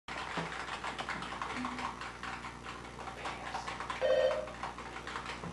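Typing on a computer keyboard: a steady run of irregular key clicks. A brief electronic tone sounds about four seconds in.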